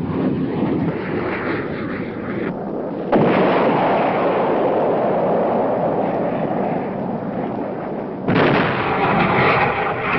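Fighter jet engines running, a loud, steady roar that jumps abruptly louder about three seconds in and again near eight seconds.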